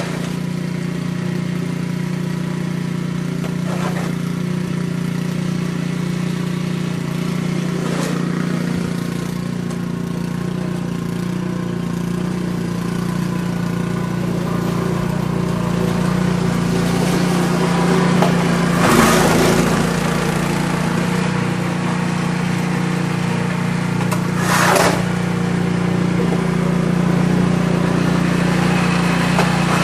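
An engine running steadily at an even speed. Two short, louder rushes of noise come through about two-thirds of the way in and again a few seconds later.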